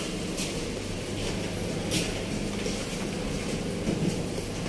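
Steady low mechanical drone inside an airport jet bridge, with two short knocks, one just after the start and one about two seconds in.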